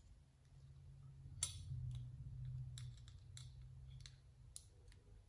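Faint, sharp clicks, about five spread over a few seconds, of a precision Phillips screwdriver working the tiny screws on a MacBook Air's blower fan housing, over a low steady hum.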